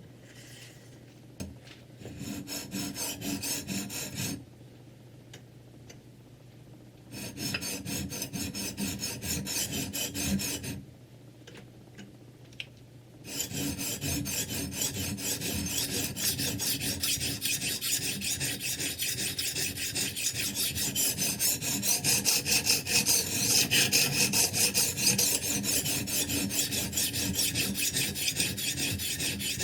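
Sharpening stone on a Ruixin Pro 3 guided knife sharpener, rasping back and forth along the steel edge of a kitchen knife. Two short runs of strokes with pauses between them, then steady rapid strokes from a little under halfway through.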